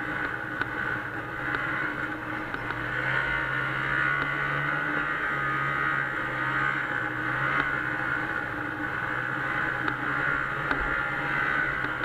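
Arctic Cat Bearcat 340 snowmobile's Suzuki-built two-stroke engine running steadily under way, heard from on board, its pitch shifting slightly now and then with the throttle.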